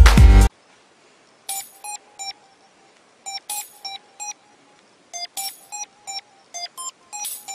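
Electronic dance music stops abruptly about half a second in. It is followed by a sparse, loose rhythm of short, high electronic beeps, mostly on one note with a few a little higher or lower.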